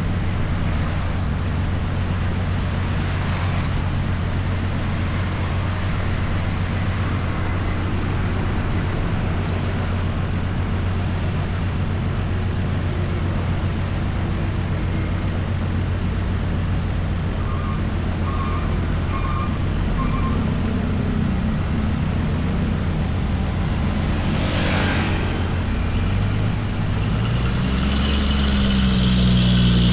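Road traffic on a busy city road: cars, motorbikes and heavier vehicles running past over a constant low engine hum. Four short beeps sound near the middle, and near the end a larger engine grows louder, its pitch rising and falling.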